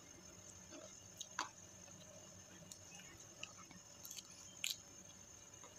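Close-up eating sounds: quiet chewing with a few sharp crunchy clicks, including bites into a raw cucumber slice about four seconds in.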